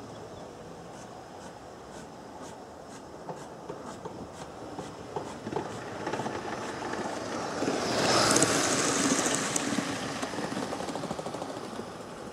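Gauge 1 live steam model train running on the garden track: light regular ticks about two a second over a low rumble of wheels on rail, growing louder with a hiss about eight seconds in, then easing off toward the end.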